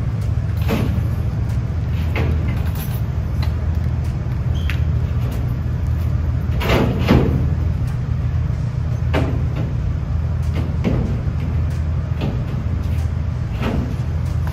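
Knocks and scrapes of a metal base plate being slid and set into place in the fire truck's rear compartment and stepped on, the loudest about seven seconds in, over a steady low hum.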